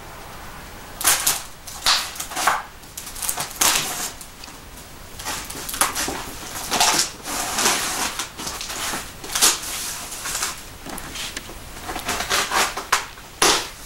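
Plastic packing tape on a cardboard shipping box being cut and pulled away by hand: a string of irregular scraping, crinkling and rustling noises as the tape and cardboard are worked.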